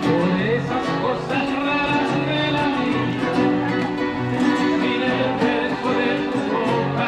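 Two acoustic guitars playing a mellow Latin ballad, chords with a moving melody line over them.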